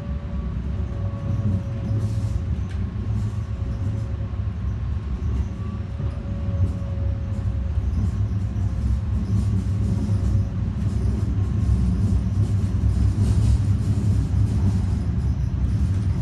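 A train running, with a steady low rumble and a motor whine that slowly falls in pitch and fades out about ten seconds in.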